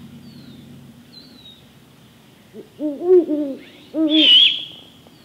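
Great horned owl hooting: after a quiet start, a quick run of about four deep hoots around three seconds in, then one more about a second later. A brief high-pitched, harsh call sounds over the last hoot.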